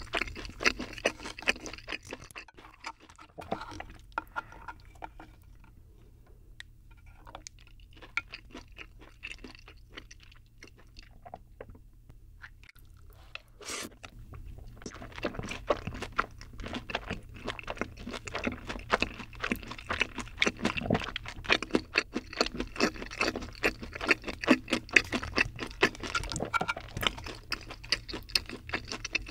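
Close-up wet mouth sounds of eating creamy cream-pasta sauce from a spoon: smacking and chewing. The sounds are sparse and quieter through the middle and grow dense and louder after a spoonful goes into the mouth about halfway through.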